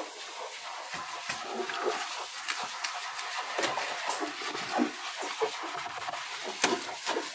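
Soft side of a kitchen sponge wiping and scrubbing a wet glass refrigerator shelf, an irregular rubbing sound with scattered light knocks and clicks.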